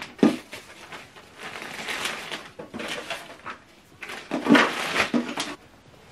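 Clear plastic packaging bag crinkling and rustling in several bursts as accessories and paper are pulled out of it, loudest about four to five seconds in.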